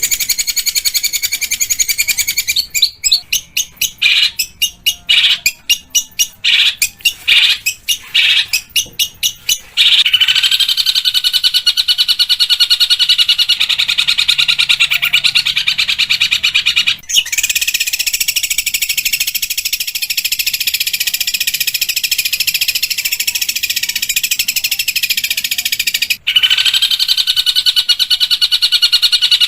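Long-tailed shrike (pentet) singing a loud, harsh song. It opens as a run of short separate bursts, then about a third of the way in turns into a continuous rasping chatter, broken by two brief gaps.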